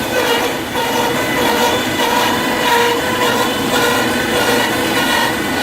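Wood crusher running loudly and continuously, a steady mechanical whine over a rushing noise, its pitch wavering slightly.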